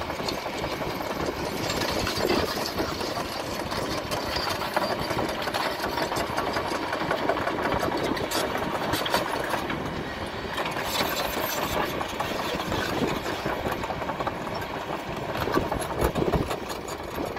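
Kobelco SK210 long-reach excavator's diesel engine running steadily under working load, with a few sharper knocks near the end.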